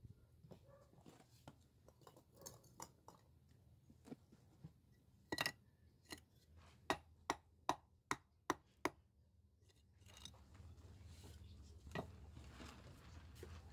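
A hammer knocking a rough stone block to bed it into wet mortar in a stone foundation. A few light taps come first, then a run of sharp knocks at about two to three a second, with one more knock near the end.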